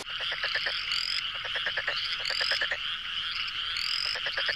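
Chorus of calling frogs: short rapid pulsed trills again and again, a high rising whistled note about every second and a half, over a steady high-pitched chorus. It starts abruptly.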